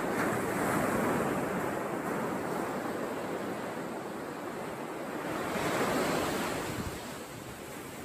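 Surf breaking and washing up on a sandy shore. It swells twice, about a second in and again near six seconds, then eases off.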